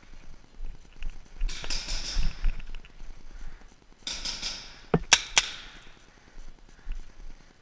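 Paintball markers firing in two quick volleys about two and a half seconds apart, sharp pops with a hissing tail that rings off the hall; three hard cracks near the end of the second volley are the loudest.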